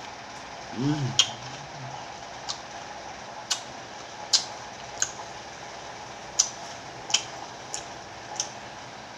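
Close-up eating sounds of someone chewing sour kamias (bilimbi) fruit: sharp wet clicks from the mouth at irregular spacing, about one a second. A short hummed 'mm' comes about a second in.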